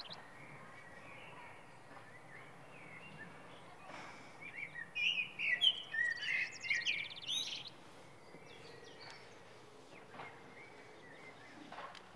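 Several birds chirping and trilling over a faint steady outdoor background hiss, busiest and loudest from about four to eight seconds in.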